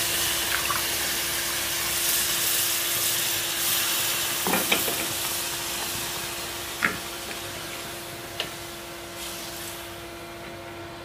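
Mung bean curry sizzling and bubbling in a hot steel pan just after hot water is added, the hiss slowly dying down. A few light clicks sound partway through, over a faint steady hum.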